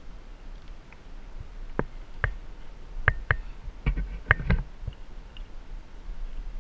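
A scatter of sharp clicks and light metallic clinks from rigging hardware being handled: a rigging pulley, carabiners and rope worked by gloved hands. The clicks come one by one, then in a quick cluster a little past the middle.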